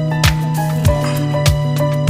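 Background music with a steady beat: a deep drum hit that drops in pitch about every 0.6 s, over a held low note and a simple melody.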